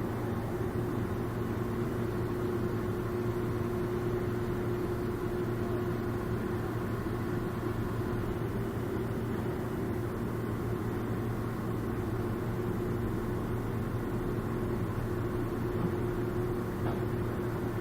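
Loud, steady mechanical drone: a low hum with a few fixed, humming tones above it, holding unchanged throughout without rising or falling.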